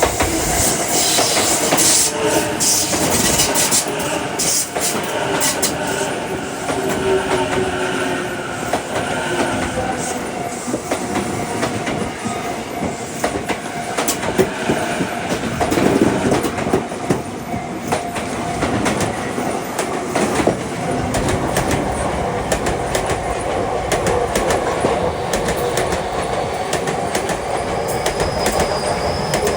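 Electric commuter train running past at close range, wheels clacking over the rail joints. The noise stays loud and even for the whole half minute.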